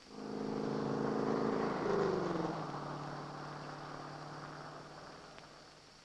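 A car driving past: its engine hum comes in, drops in pitch as it passes about two seconds in, then fades away as it drives off.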